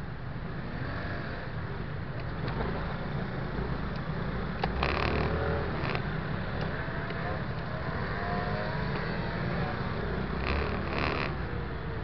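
Onboard sound of an MBK Tryptik three-wheel scooter riding in slow city traffic: a steady engine, road and wind rumble, with the engines of the surrounding scooters revving up and down. The noise swells about five seconds in and again near the end.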